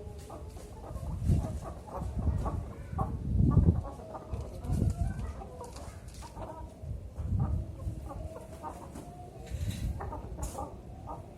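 Young spotted doves (derkuku) cooing in short repeated calls, mixed with other bird calls, and low rumbling bursts every second or two.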